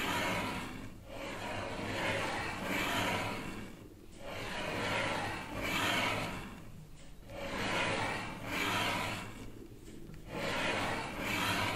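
Scratchy rubbing noise in repeated strokes that swell and fade about every two to three seconds.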